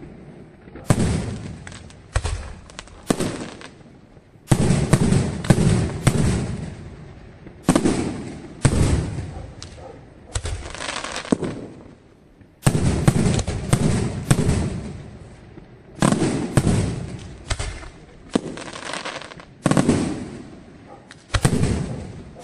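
Aerial firework shells bursting in quick succession: sharp bangs with echoing tails, coming in clusters of several every second or two, with brief lulls between.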